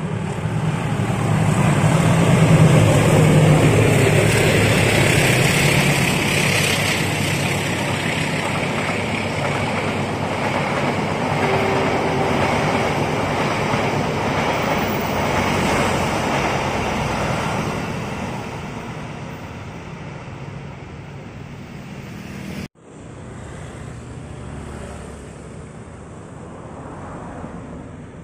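Passenger train passing at speed: a loud rush of wheels on rails and rolling carriages, loudest in the first few seconds and dying away after about eighteen seconds. After a sudden cut, quieter road traffic with a car going by near the end.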